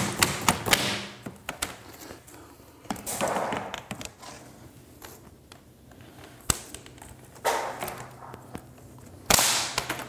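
Interlocking plastic Swisstrax floor tiles being handled and fitted by hand on a concrete floor: sharp plastic clacks and snaps, with a few short scraping swishes as tiles are slid into place.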